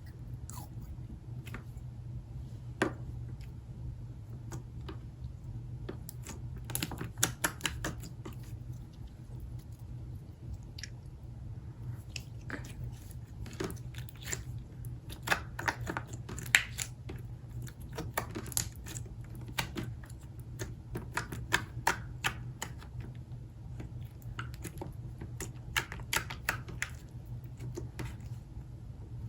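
Hands squishing, poking and stretching slime, giving irregular sticky clicks and small pops, often in quick clusters, over a steady low hum.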